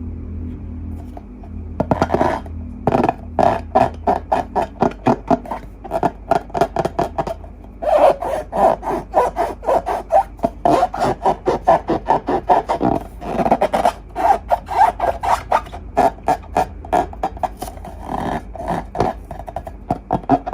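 Hands rubbing and squeezing slime and long balloons in quick strokes, several a second, beginning about two seconds in.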